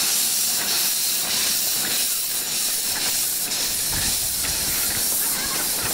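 Steam tank locomotive standing with steam venting near its cylinders: a steady, loud hiss, with a brief low rumble about four seconds in.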